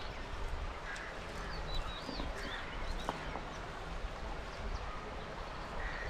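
Steady rush of river water, with a few short, high bird chirps about two seconds in and an odd sharp click.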